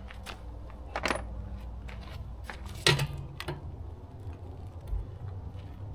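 Small steel parts clinking as loosened bolts and hold-down bars from an outboard water pump housing are handled and set down: a few irregular sharp clinks, the loudest about a second and about three seconds in.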